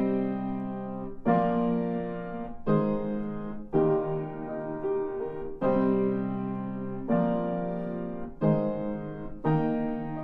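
Acoustic piano playing slow sustained chords, a new chord struck about every second to second and a half, each ringing and fading before the next.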